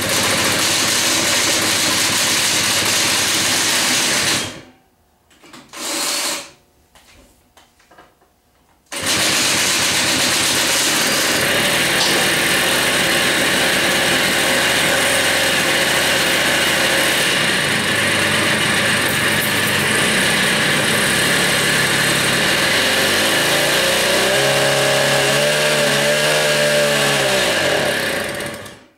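Engine of a 1978 Lazer moped that sat outside for 32 years, cold-starting. It runs for about four seconds and dies, catches briefly, then starts again about nine seconds in and runs steadily. Near the end its speed rises and falls a few times before it cuts out.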